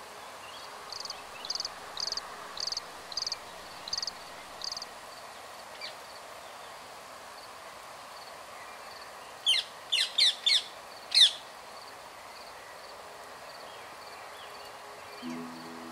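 Rose-ringed parakeets calling: a run of seven short, high calls about half a second apart in the first five seconds, then five loud, sharp screeches close together about ten seconds in.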